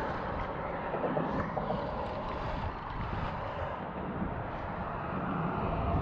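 Steady outdoor rumble of road traffic with wind on the microphone, a broad hum that dips in the middle and swells again near the end.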